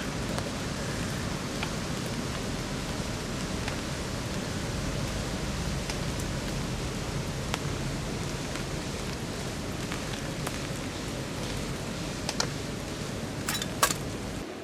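Steady rainfall, a dense even patter with scattered single drop ticks, and a few sharper clicks near the end.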